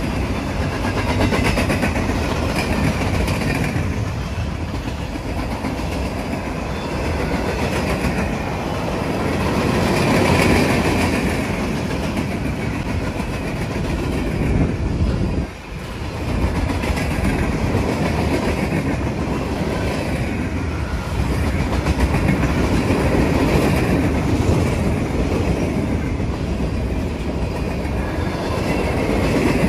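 Freight cars of a passing train rolling by close at hand: a steady loud rumble of steel wheels on the rails with clickety-clack over the rail joints. The sound dips briefly about halfway through, then comes back as more cars go by.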